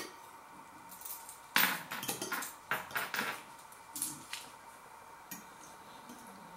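A fork scraping and clinking against a plate while food is gathered up, with a burst of sharp scrapes in the middle and a few lighter clicks after.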